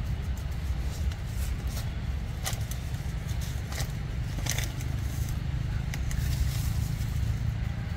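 A steady low rumble, with a few sharp crackles of dry leaf litter around the middle.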